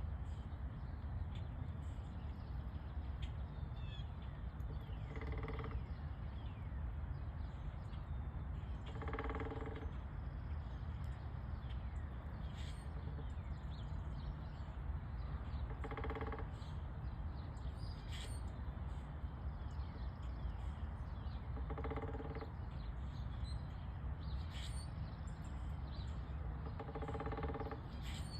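Woodpecker hammering into wood in five short rapid bursts of about a second each, several seconds apart, over a steady low rumble.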